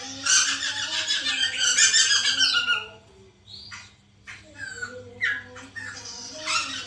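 Poksay mantel laughingthrush giving a loud, harsh chattering burst of calls for almost three seconds, then several short, separate downward-sliding notes. This is a lure recording meant to prompt another poksay mantel to start calling.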